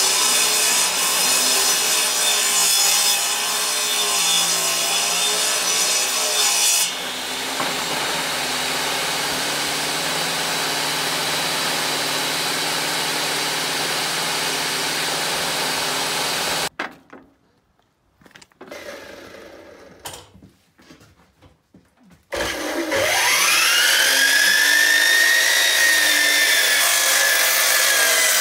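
Portable table saw cutting through a long wooden board; about seven seconds in the cut ends and the blade runs on unloaded. After a short quiet gap, a miter saw motor spins up with a rising whine and runs into the cut.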